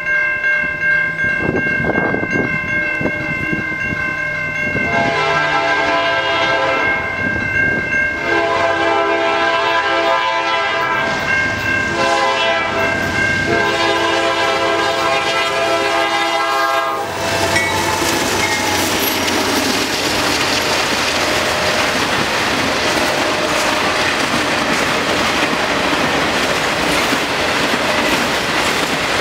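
Freight train approaching a grade crossing, with a steady high ringing from the crossing signals. The lead GE C44-9W sounds its horn in the crossing pattern of two long blasts, a short and a long, starting about five seconds in. The horn stops about seventeen seconds in as the locomotives reach the crossing, and the loaded autorack cars then roll past with a continuous clickety-clack of wheels on rail joints.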